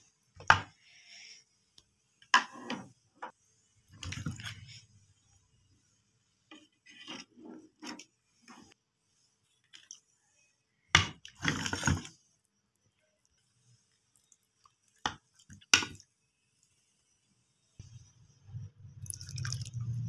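A serving spoon and beef marrow bones clinking and knocking against a serving dish as curry is dished out: a handful of separate clinks and knocks with quiet gaps between, the loudest pair about eleven seconds in.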